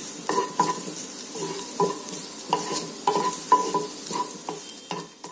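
Wooden spatula stirring chopped garlic in a little hot oil in a nonstick frying pan: repeated scrapes and taps against the pan, about two or three a second, over a light sizzle as the garlic is sautéed towards light brown.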